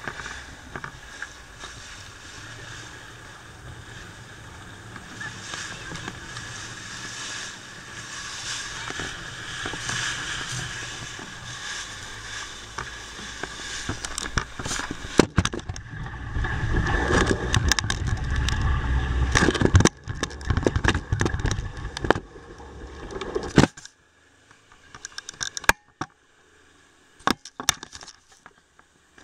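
Small passenger ferry boat under way: a steady engine and water hum with wind and spray buffeting the microphone, growing into heavy low rumbling gusts. About two-thirds through it drops away sharply, leaving only scattered sharp knocks and clicks.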